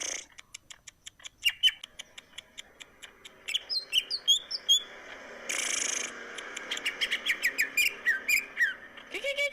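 Cucak ijo (green leafbird) singing a fast, varied song: rapid sharp ticking notes and chirps, with quick down-gliding whistled notes, and a short harsh hissing burst about five and a half seconds in.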